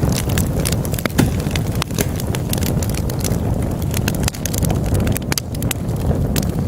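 Wood logs burning in a fireplace: a steady low rumble of flames with frequent, irregular sharp crackles and pops.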